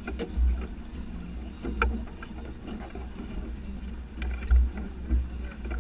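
A boat on open water: a low rumble that swells and buffets unevenly, with several short knocks or slaps through it.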